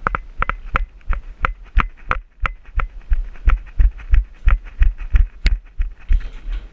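Rhythmic thuds, each with a sharp click on top, about three a second and evenly spaced.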